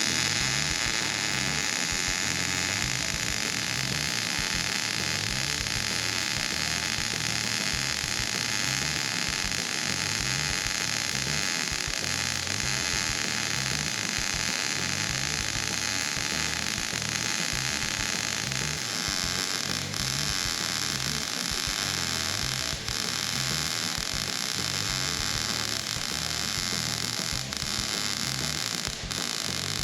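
Gas-shielded MIG welder running one long continuous bead on steel, a steady crackling hiss that holds for the whole stretch, its tone shifting slightly about two-thirds of the way through.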